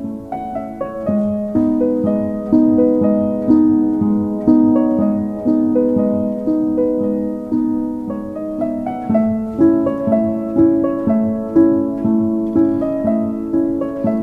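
Background instrumental music: a gentle melody of plucked notes that ring and fade, with a stronger note about once a second.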